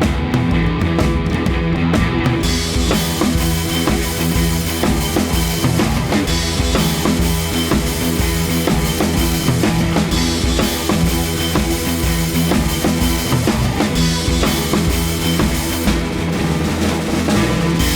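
Rock music with a full drum kit and guitar playing steadily; the cymbals and high end come in about two and a half seconds in.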